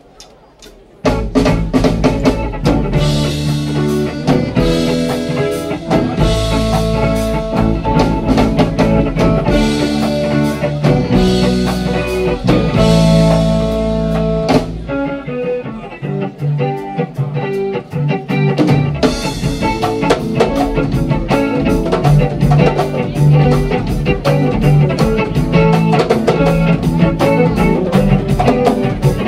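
Live band music with guitars and drums, starting abruptly about a second in and carrying on with a steady beat.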